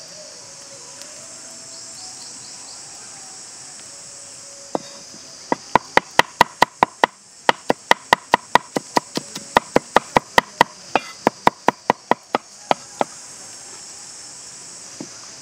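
Cleaver chopping garlic on a wooden chopping block: a quick run of sharp knocks, about four a second, with a short break early in the run, stopping a couple of seconds before the end. Insects drone steadily and high in the background.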